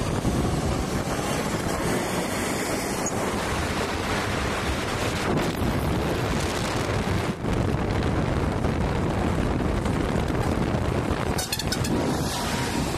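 Steady wind noise buffeting the microphone over the noise of a passing road vehicle.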